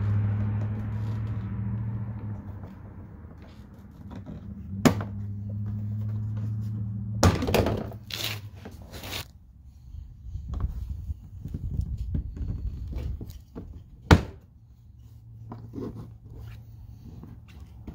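Plastic retaining clips of a Jeep Grand Cherokee WK2's lower front fascia snapping loose as the fascia is pulled off by hand. There are sharp snaps about five, seven and fourteen seconds in, with plastic scraping and knocking between them. A steady low hum runs in the background at the start and near the end.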